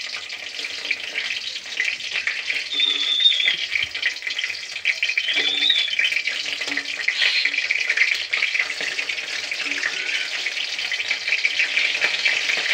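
Shapla (water lily stem) fritters in rice-flour batter sizzling steadily as they fry in oil in a karahi.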